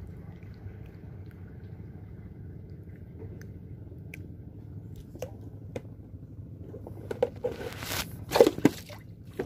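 Low steady hum with a few faint ticks, then from about seven seconds in loud rustling and crackling as the phone is moved and rubbed against a sleeve: handling noise on the microphone.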